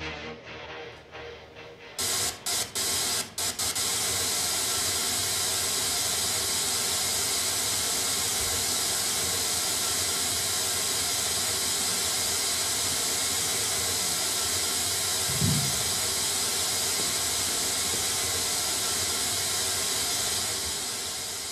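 Television static (white-noise hiss) sound effect through the theatre speakers. It cuts in about two seconds in, stutters off and on a few times, then runs steady before fading out near the end.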